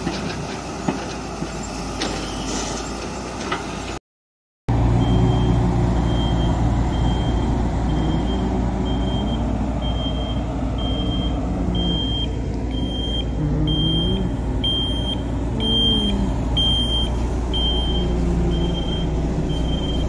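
Heavy diesel machinery running, then a brief dropout. After it, a road roller's diesel engine runs steadily with its revs rising and falling now and then, while a reversing alarm beeps a little more often than once a second.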